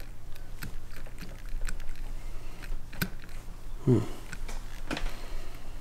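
Scattered light clicks and knocks of hands and tools working at a Yamaha Superjet crankshaft stuck in its engine case, over a steady low hum. A short falling voice-like sound comes about four seconds in.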